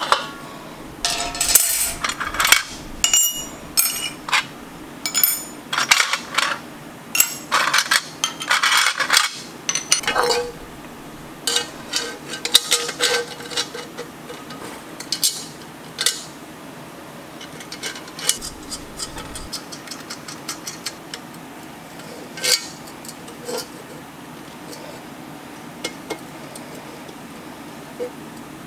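Cast-iron hibachi grill parts and bolts clinking and knocking as they are handled and fitted together, in a dense run of irregular clinks that thins out about halfway through, over a steady low hum.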